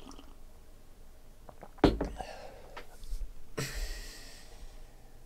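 Hands squaring a tall stack of trading cards on a table: a sharp knock about two seconds in, then a short rustle of card edges sliding together about a second and a half later.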